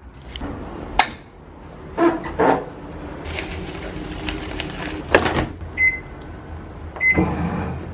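Clothes handled and washing powder poured into a top-loading washing machine with a rustling hiss, then the machine's control panel beeps twice, short single-tone beeps, as its buttons are pressed.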